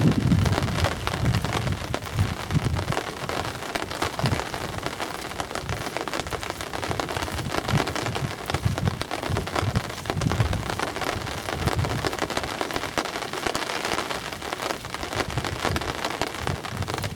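Steady rain pattering, a dense stream of small drop ticks, with gusts of wind buffeting the microphone.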